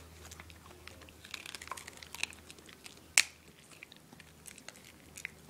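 A small dog chewing and crunching food, a run of small irregular crunchy clicks with one sharp click about three seconds in.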